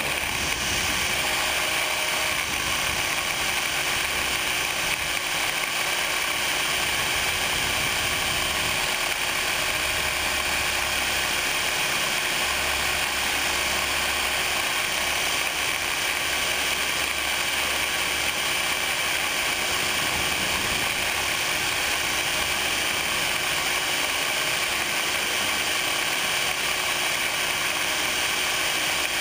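Radio-control helicopter's motor and gear drive running at a steady speed, a dense mechanical whir with a constant high whine in it.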